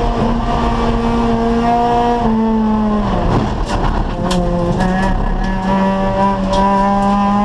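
Acura Integra race car's four-cylinder VTEC engine running hard on track. It holds a steady high-rev note, drops in pitch about two seconds in, and briefly breaks up with a few clicks near the middle, a lift or shift. Then it pulls again, the pitch rising slowly to the end.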